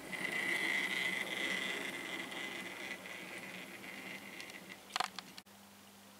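OO gauge model pannier tank locomotive and its wagons running on the track: a steady high whine with rattle that fades as the train pulls away. A few sharp clicks come near the end, and then the sound cuts off suddenly.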